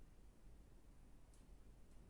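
Near silence: a low background rumble, with two faint, very short high-pitched sounds about halfway through and near the end.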